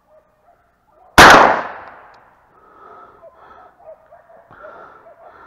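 A single very loud, close gunshot from a hunting gun about a second in, its report dying away over about a second. Faint dogs barking in the distance before and after it.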